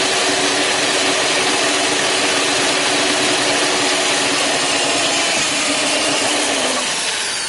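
Corded electric drill's motor running steadily at speed, then beginning to wind down about seven seconds in.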